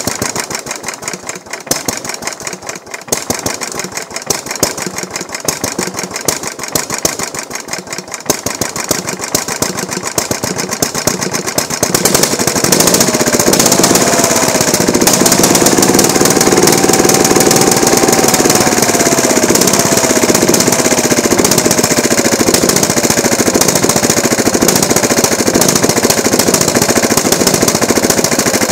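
Lombardini LAP 490 single-cylinder petrol engine on a BCS 20000 walk-behind mower, running unevenly just after a cold start. About twelve seconds in it picks up speed and settles into a louder, steady run.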